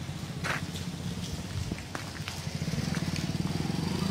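An engine running steadily at low speed, its low pulsing growing slightly louder in the second half, with a few sharp metallic clicks from work on the tractors.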